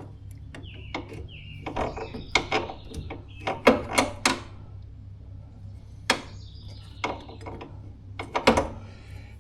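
Scattered clicks and knocks of hand tools and metal parts as a tractor pedal is slid into place and screwed on, some in quick ratchet-like runs.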